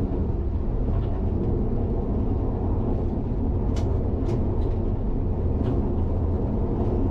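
Steady low rumble inside the cab of an SNCF AGC bi-mode railcar running at about 70 km/h on diesel power on unelectrified track, with a few short sharp ticks from the running gear and track.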